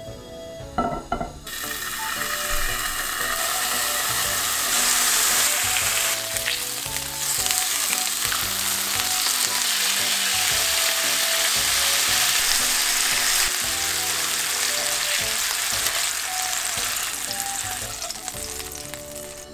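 Pork belly slices sizzling as they fry in a hot nonstick frying pan. The sizzling is loud and steady, and sets in about a second and a half in, after a few short knocks.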